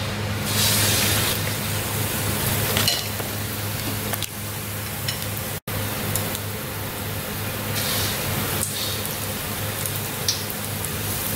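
Batter-coated potato vadas sizzling and bubbling as they deep-fry in hot oil in a steel kadhai, a steady frying hiss with a low hum beneath it. The sound breaks off for an instant about halfway.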